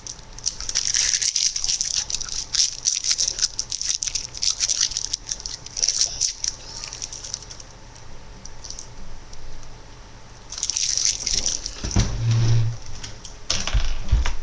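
Close crackling, rustling noise in bursts with short pauses between them, and a brief low hum near the end.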